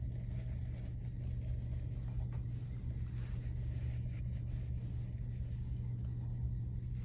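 Steady low machine hum, unchanging throughout, with a few faint small taps and rustles of handling on top.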